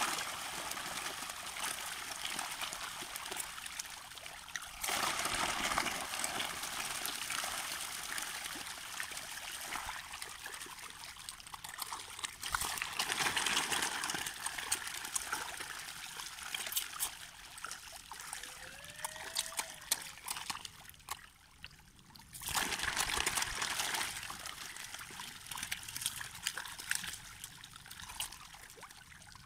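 Many catfish splashing and thrashing at the water's surface in a feeding frenzy: a continuous, irregular spatter of small splashes and slaps that grows louder and softer in stretches.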